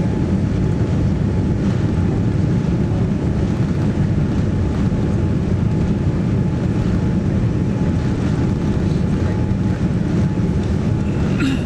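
Steady low rumble of a Boeing 787-9 airliner heard from inside the passenger cabin, with a faint steady hum above it and a brief higher sound near the end.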